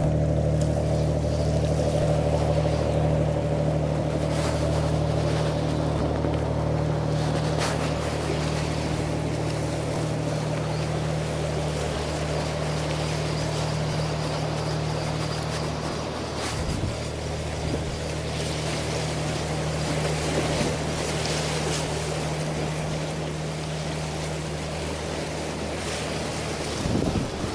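A boat engine drones steadily over the wash of water and wind, and part of the hum drops away about sixteen seconds in.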